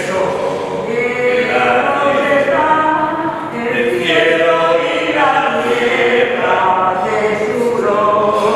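Choir singing a slow song in long held phrases.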